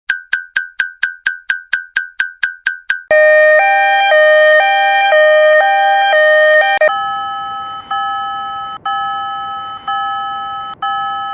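Synthesized level-crossing warning sounds that change style twice: first a fast ringing ding about four times a second, then from about three seconds a loud two-tone alarm alternating about twice a second, then from about seven seconds a slower chime struck about once a second.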